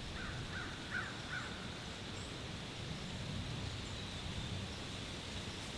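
Outdoor morning ambience: a steady low rush of wind, with four short bird calls in the first second and a half.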